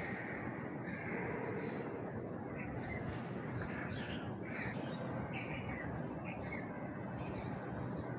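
Birds calling over and over in short calls, about one every half second to a second, over a steady background rush of outdoor noise.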